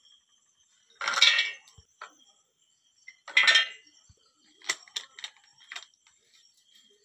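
Peanuts and almonds tipped from glass bowls into a stainless steel mixer-grinder jar: two short spills of nuts hitting the steel, then a few light clinks of glass on steel.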